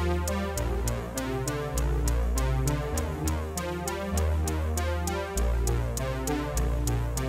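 Electronic background music: sustained low synth bass notes changing about once a second under a steady beat of quick ticks, about four a second.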